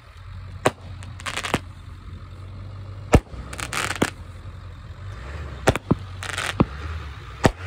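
Consumer aerial fireworks going off: about six sharp bangs as shots break overhead, with hissing, crackling tails rising between them.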